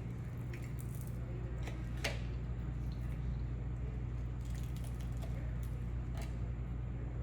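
Close-up mouth sounds of someone eating pizza: soft wet chewing with a few short sharp clicks, over a steady low hum.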